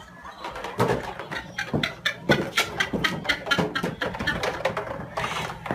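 Dog barking repeatedly, a quick series of short, sharp barks.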